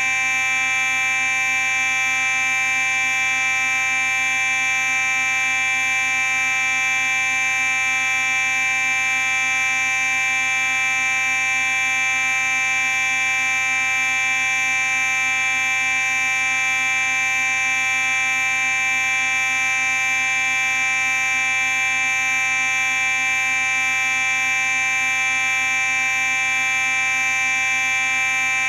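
Simplex 4903-9838 fire alarm sounding continuously: one steady, unbroken tone with many overtones, never pausing or changing pitch.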